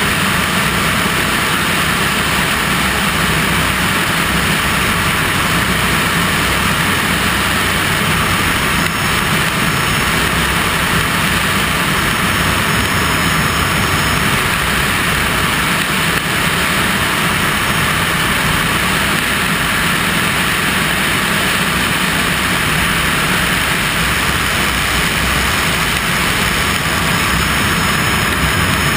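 Cessna 208B Caravan's single PT6A turboprop engine and propeller running steadily in flight, a constant loud drone.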